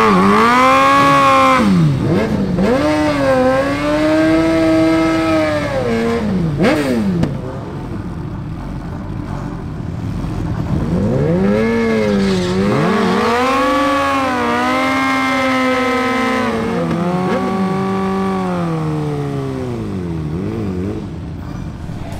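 Suzuki GSX-R1000 inline-four engine revved hard several times at the drag-strip start line. Each rev climbs, holds high for a second or two, then drops back. There is a quieter stretch in the middle.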